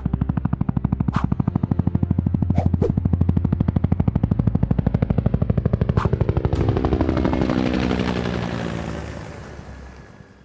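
Helicopter rotor beating in a rapid, even rhythm, with a few sharp cracks over it. About seven seconds in it swells into a rushing whoosh with falling pitch as it passes, then fades away at the end.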